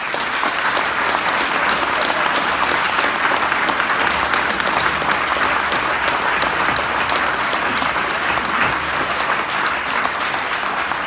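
Crowd applauding: many people clapping together, starting suddenly and holding steady.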